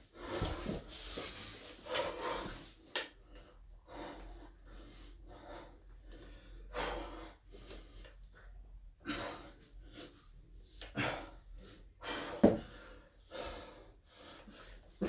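A man breathing hard through an exercise set, with a forceful puff of breath every second or so and one louder burst near the end.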